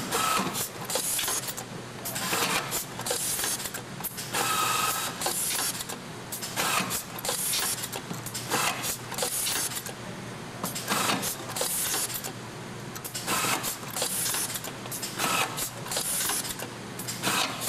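Automatic screw feeder and screwdriver slide cycling screw after screw: short hissing bursts every second or two over a steady machine hum, some with a brief whine from the driver.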